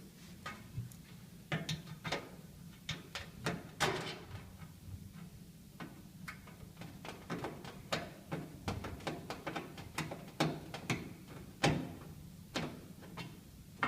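Irregular light clicks and taps of a screwdriver turning out the four screws that hold the lid onto a simplehuman wide step trash can, with small metal and plastic knocks as the parts are handled.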